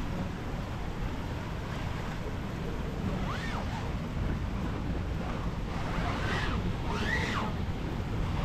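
Steady rush of a waterfall mixed with wind on the microphone, with faint rising-and-falling voices a few times in the background.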